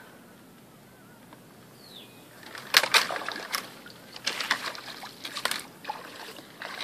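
Water splashing and sloshing as a 25-litre plastic bucket trap is lifted out of shallow pond water, starting about two and a half seconds in, with water pouring and dripping off it.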